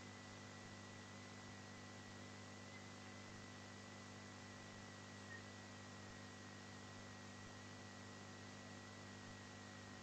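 Near silence: a faint, steady electrical hum with light hiss and a thin, steady high tone.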